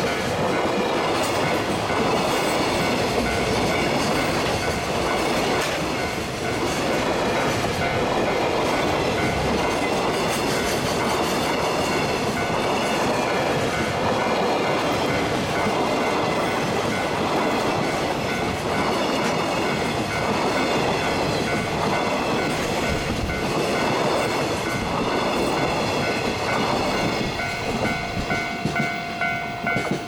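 Container freight train's flatcars passing close at speed: a steady loud rumble with wheels clacking over the rail joints. Near the end, as the last wagon goes by, a level-crossing warning bell ringing in a regular quick beat comes through.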